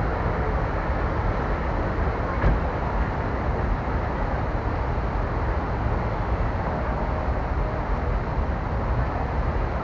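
Steady outdoor ambience of a busy city plaza: a low rumble of traffic under the hiss of a crowd, with one brief knock about two and a half seconds in.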